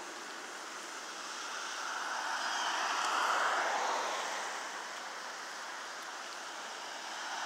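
Tyre hiss of a car passing on a wet road, swelling to its loudest about halfway through and then fading.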